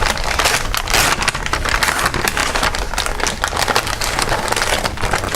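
Wrapping paper being torn and crinkled as a present is unwrapped: a continuous run of irregular crackles and rips.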